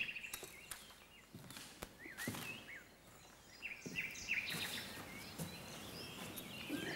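Birds chirping in short, repeated calls over a faint noise background, with scattered knocks and clatter of objects being moved on a stage.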